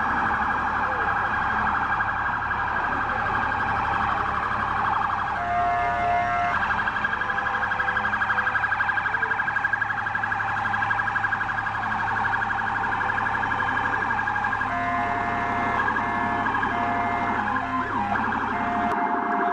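Emergency-vehicle siren sounding continuously in a fast, rapid warble, with a horn giving short blasts once near the middle and several times near the end.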